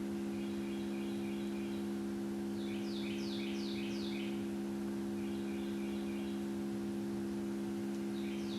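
Steady 68 Hz tone from a tone generator played through a small Bluetooth speaker, heard as a constant low hum made of its overtones. A bird calls over it in short chirp series, several times.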